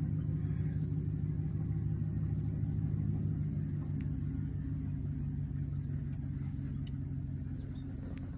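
Car engine running with a low, steady hum, heard from inside the car's cabin; it eases slightly near the end.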